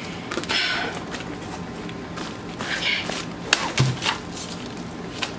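Paper and plastic packaging rustling in the hands, with a few light clicks and a low knock about four seconds in as a rolled canvas tube is set down on a wooden table.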